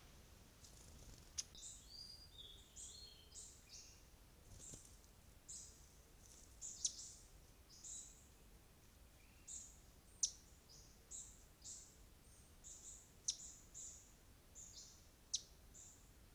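A bird chirping: short, high calls repeated one or two times a second, some of them sharp ticks, against faint forest background.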